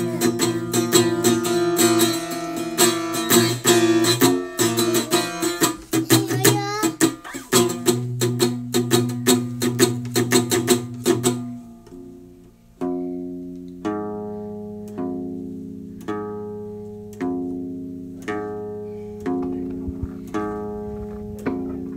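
Background music on a plucked string instrument: quick, busy picking for about the first half, then, after a brief drop, slower plucked notes roughly once a second, each ringing out and fading.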